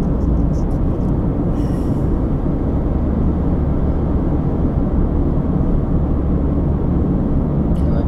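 Car driving at highway speed, heard from inside the cabin: a steady low rumble of road and engine noise.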